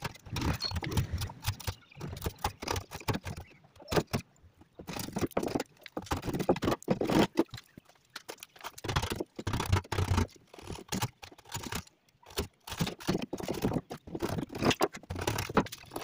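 Irregular clicks, knocks and scraping, with short pauses: hand work on a door and its metal lock fittings.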